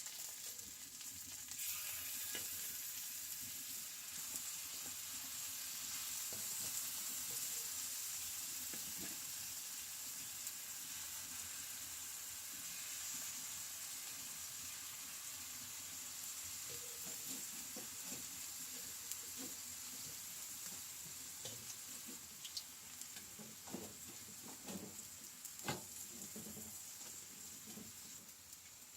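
Food sizzling as it fries in a pan, a steady high hiss with scattered pops, and a few louder knocks in the last third as the sizzle slowly dies down.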